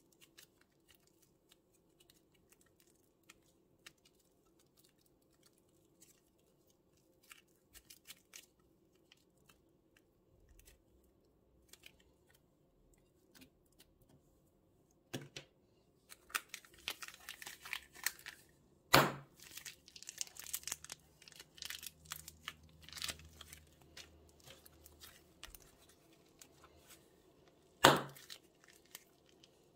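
Plastic bags being crinkled and torn: scattered light crackles at first, then about fifteen seconds in a dense run of crinkling with two loud sharp snaps, the second near the end.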